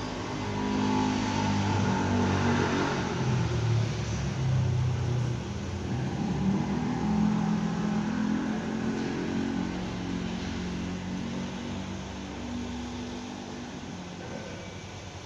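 A motor vehicle engine running, its pitch rising and falling as it revs, loudest in the first half and fading toward the end.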